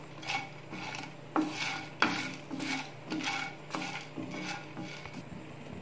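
Wooden spatula stirring whole dry spices (bay leaves, cinnamon, dry ginger, cardamom pods, cloves, peppercorns) as they dry-roast on low flame in a nonstick pan. The strokes scrape and rattle irregularly, with a couple of sharper knocks against the pan.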